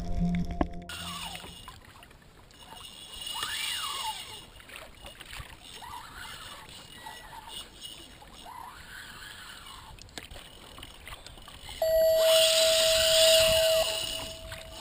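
Background music cuts off in the first second, then water splashes and laps against a fishing kayak while an angler fights a fish on a spinning rod and reel. About twelve seconds in a louder hiss with a steady hum comes in for about two seconds.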